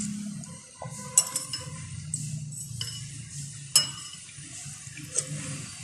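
Metal spoon scraping and clinking against a bowl as soup is spooned up. There are a few sharp clinks, the loudest about four seconds in.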